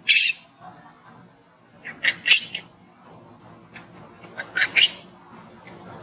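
Baby macaque crying in short, shrill squeals that come in three bursts: one at the start, one about 2 s in, and one about 4.5 s in.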